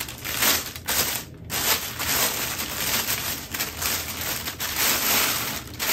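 Clear plastic bag crinkling and rustling as a wrapped camera lens is handled and worked out of it, with a short lull about a second and a half in.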